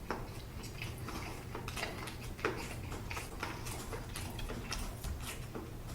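Close-miked chewing of spicy stir-fried instant noodles: a steady run of short, wet mouth clicks and smacks over a low, steady hum.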